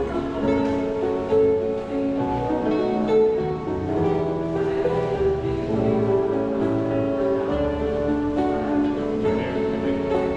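Acoustic guitar played live, with plucked notes ringing over one another.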